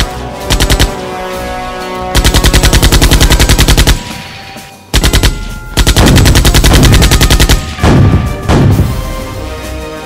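Machine-gun fire laid over music in several bursts: a short burst, a long run of about two seconds, another short burst, then another long run that breaks up near the end, with the music going on between them.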